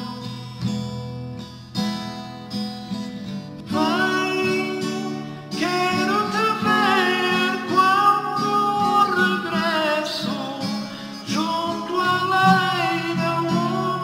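Acoustic guitar strummed in a slow chord pattern, with a man's singing voice coming in about four seconds in and carrying the melody over the guitar.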